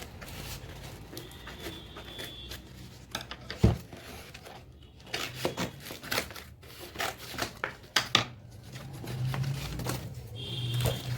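Cardboard box and packaging being handled and lifted out by hand: scattered rustles, scrapes and taps, with one sharp knock about four seconds in and a run of knocks a little later.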